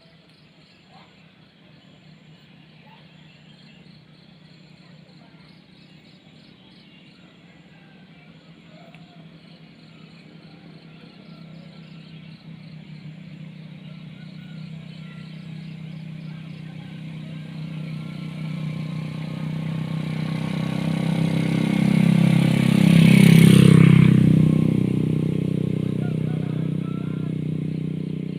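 A motor vehicle approaching, its engine growing steadily louder until it passes close by about 23 seconds in, then fading as it moves away. Insects chirp faintly and steadily underneath.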